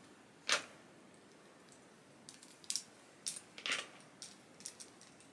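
Hands handling small plastic toy packaging: one sharp click about half a second in, then a run of small clicks and crinkles.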